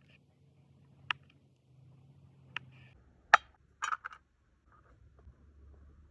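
A few sharp taps and clicks, the loudest about three seconds in and followed by a brief rattle, over a faint low hum.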